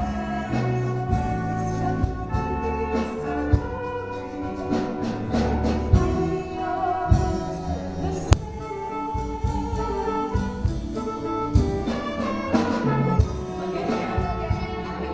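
Instrumental stage-musical music with a beat, and a sharp click about eight seconds in.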